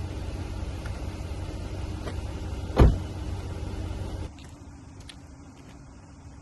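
Low, steady rumble of a car, with one sharp, loud thump about three seconds in. The rumble cuts off suddenly about four seconds in, leaving only quiet background.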